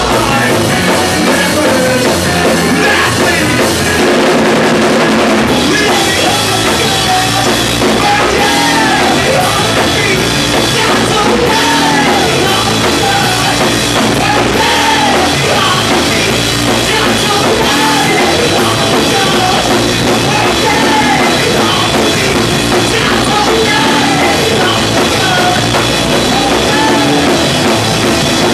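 A rock band playing loud live post-hardcore: distorted electric guitar through a Marshall stack, drum kit and bass, with a singer shouting into a microphone.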